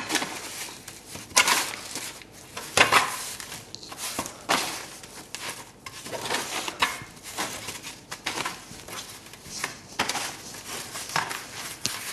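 Hands working bread dough on a baking tray lined with a black baking sheet: irregular rustling and crinkling of the sheet, with light knocks against the tray.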